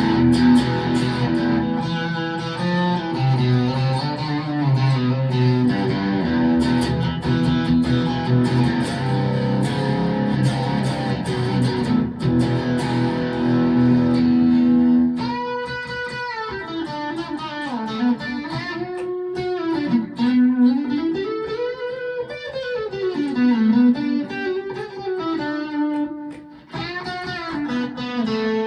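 Rockburn Strat-style electric guitar played through overdrive distortion: dense riffing for about the first half, then a lead line of held single notes with wide string bends and vibrato.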